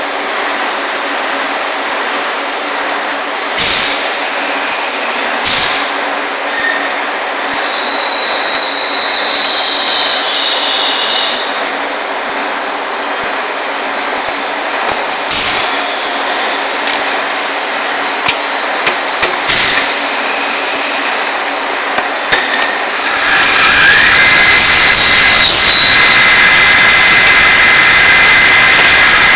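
Turret lathe running with a steady mechanical drone and a few sharp knocks. About 23 seconds in, a much louder rushing noise takes over, with a high whine that rises and then holds steady.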